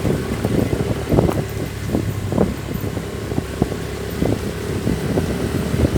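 A motor vehicle's engine running steadily, with wind noise on the microphone and irregular knocks and rattles.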